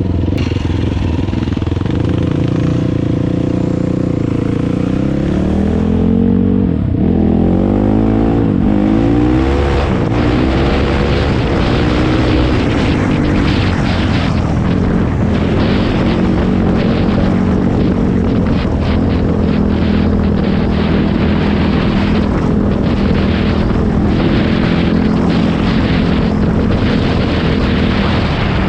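Sport ATV engine accelerating through the gears, its pitch climbing and dropping back with each shift from about four to nine seconds in, then running steadily at speed.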